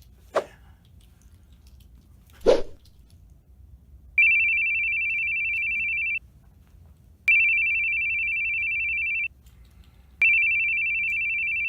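Telephone ringing: three rings of a steady electronic tone, each about two seconds long with a second's pause between them. The third ring stops abruptly. Two short thuds come before the ringing.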